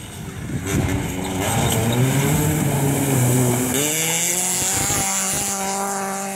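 Rally car engine revving hard as the car drives through a shallow river ford, with water splashing around it. The revs sag about two seconds in, then climb again and hold as the car powers on through the water.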